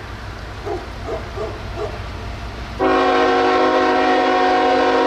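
Diesel locomotive air horn starts a loud, steady, multi-note blast a little past halfway through and holds it, as the train approaches a grade crossing. Before the horn there is only a low steady rumble.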